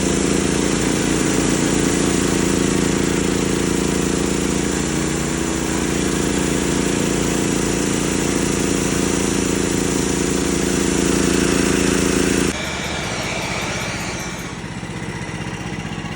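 Portable band sawmill running, its engine under load as the new blade cuts through a pecan log. About twelve seconds in the sound drops abruptly to a quieter steady running, and a bit later it eases down further.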